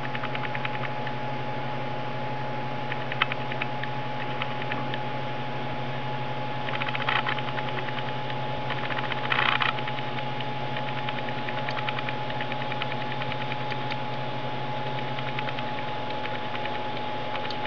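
Steady hiss with a low hum, a constant thin high tone and scattered crackles, with two brief louder rushes of noise about seven and nine and a half seconds in.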